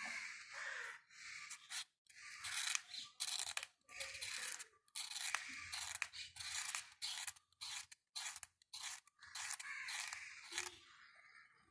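Aluminium foil being worked by hand: a series of short crinkling, scraping strokes with brief pauses between them.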